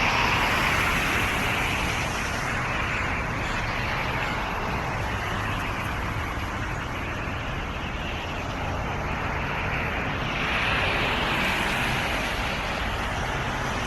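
Steady rushing noise with no distinct calls or tones, swelling near the start and again about ten seconds in.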